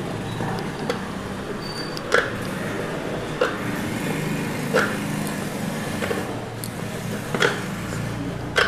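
A kitchen knife chopping down through rolled chapati onto a bamboo cutting board, one knock roughly every second and a quarter, over a steady low hum.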